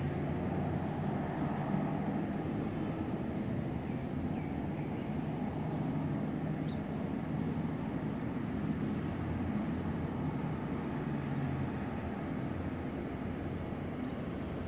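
Steady low rumble of airport background noise, with a few faint, short high chirps over it.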